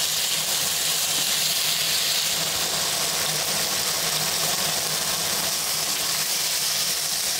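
Gnocchi, chicken and vegetables frying in a pan, a steady sizzling hiss with a low steady hum underneath.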